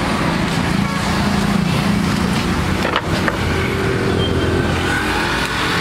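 Street traffic: a motor vehicle's engine running steadily close by, with a couple of sharp knocks about three seconds in.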